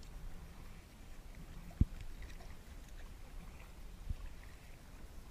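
Sea kayak being paddled: paddle blades dipping and splashing with water lapping at the RTM Tempo's hull, over a steady low rumble. A sharp knock about two seconds in, and a softer one about four seconds in.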